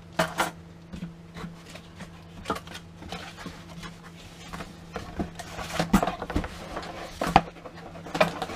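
Cardboard packaging and a plastic bag being handled: rustling, scraping and light knocks, with a couple of sharper knocks about six and seven seconds in, as a cardboard insert is lifted and a boxed unit is drawn out of its carton.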